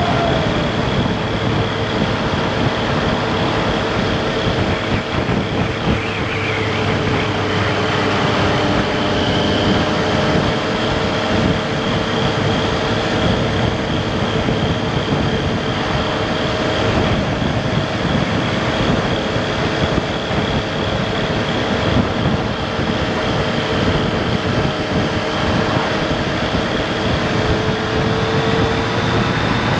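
2018 Triumph Street Triple RS's inline-three engine at a steady cruise with heavy wind rush; the engine note holds nearly constant, with only slight drifts in pitch.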